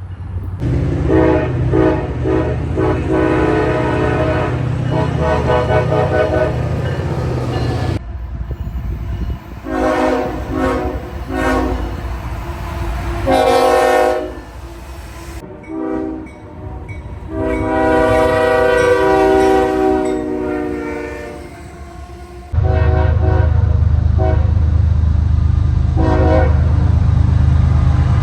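Locomotive multi-chime air horns playing a horn show: chords of several tones sounded in quick strings of short blasts and some longer held blasts, across several spliced clips. A loud low rumble runs under the horn in the first and last clips.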